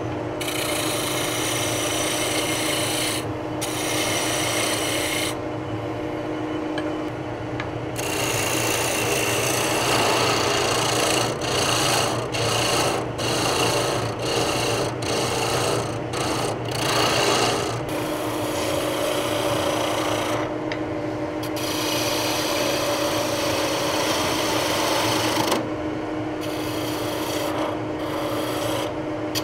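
A wood lathe turning a wooden handle while a hand gouge cuts the spinning wood. Under the hiss of the cut there is a steady motor hum. The cutting breaks off briefly many times as the gouge lifts off the work, most often about midway through.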